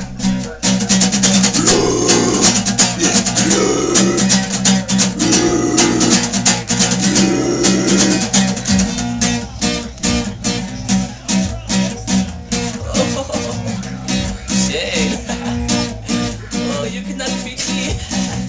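Guitar strummed hard and fast, many sharp rhythmic chord strokes in quick succession, a little less dense after about halfway.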